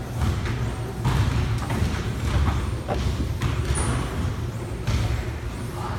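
Gym room noise: a steady low rumble from running exercise machines, with soft thuds at irregular intervals.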